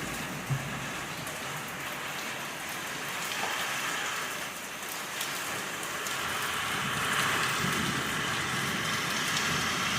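Heavy rain falling steadily, a downpour drumming on surfaces.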